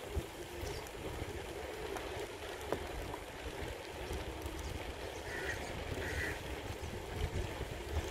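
Wind buffeting the microphone and the rolling noise of a bicycle on a paved path, a steady low rumble with a few faint ticks.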